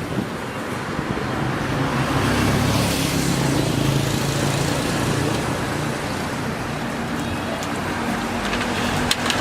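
Road traffic noise, with a motor vehicle's engine running close by and rising to its loudest about two to three seconds in.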